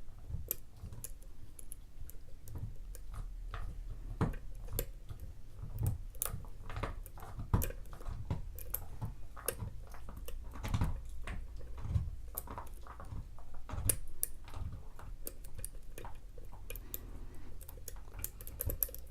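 Small irregular clicks and scrapes of a lock pick lifting pins in a pin-tumbler challenge lock under tension, a few clicks a second, as the picker works the pin stack toward a false set.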